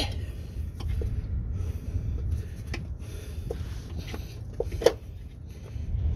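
Rustling, scraping and handling noise of work under a car, with a few scattered clicks and one sharp knock about five seconds in, over a steady low rumble.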